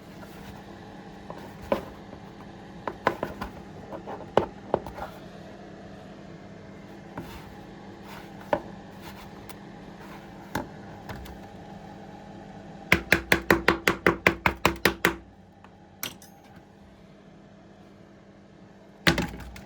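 Scattered knocks and taps on a hard object, then a quick run of about a dozen sharp strikes at roughly six a second, over a steady hum that stops with them. One more loud knock comes near the end.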